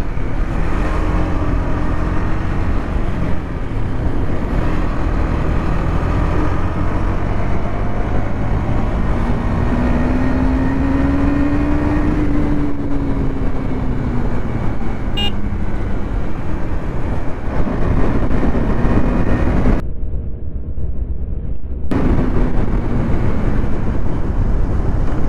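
KTM Duke 250's single-cylinder engine running under way, its pitch rising and falling with the throttle, under heavy wind rush on the microphone. About 20 seconds in, the sound turns briefly muffled for a couple of seconds.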